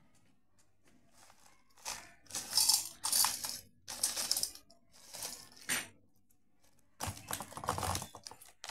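Jelly crystal powder poured from a foil-lined pouch into a stainless-steel bowl, the granules hissing onto the steel and the pouch crinkling, in several short bursts with a pause near the end.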